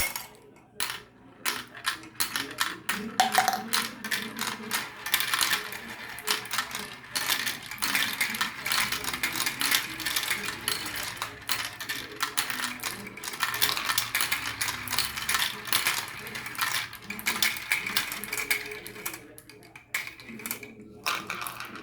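Marbles rolling and clattering down a marble run track, a dense stream of rapid clicks as they knock against the track and each other, thinning out near the end.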